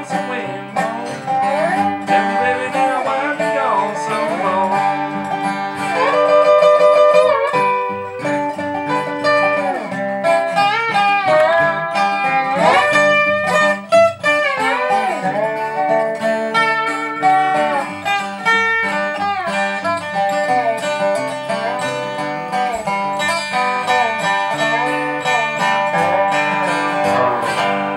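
Acoustic guitar strumming and picking, with a lap-played slide guitar playing gliding lead lines over it, in an instrumental passage with a country feel.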